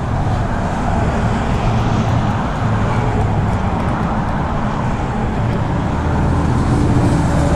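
Steady road traffic running across the bridge, an even rush of noise with a low engine hum underneath.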